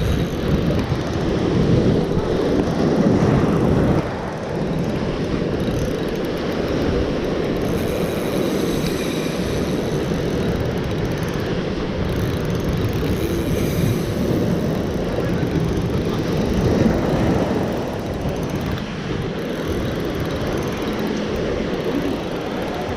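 Steady low rumbling noise of wind on the microphone and surf on the shore, loudest for the first few seconds.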